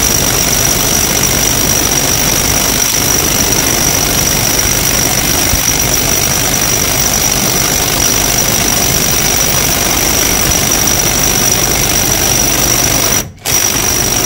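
Cordless Dowox impact wrench hammering continuously under load on a Skidmore bolt-tension tester, with a steady high motor whine over the rapid impacts. Near the end it stops for a moment, then fires again briefly.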